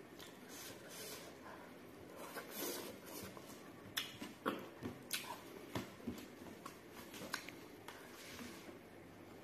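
Close-up eating sounds: fingers pulling at saucy pork and rice, then a run of sharp, wet clicks and smacks from the mouth while chewing, about halfway through.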